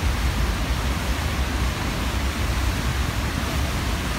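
Wind buffeting the microphone over the rushing, churning water of a ferry's wake. It is a steady, loud hiss with a heavy, uneven low rumble.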